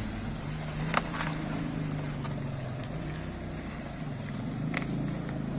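A steady low motor hum with wind noise, and two short clicks, about a second in and near the end.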